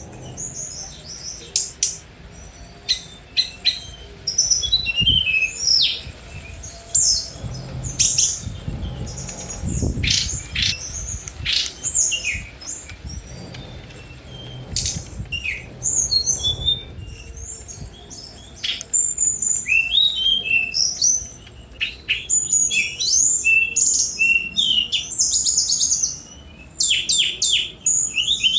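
Tledekan gunung (brown-chested jungle flycatcher) singing a fast, varied song of short chirps, sweeping whistles and trills, densest near the end. A faint low rumble sits under the middle of the song.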